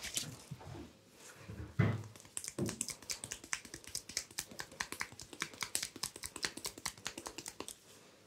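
Hands working on a client's forehead and scalp during an ASMR head massage: a soft thump about two seconds in, then a quick run of light, sharp taps and clicks, several a second, that stops near the end.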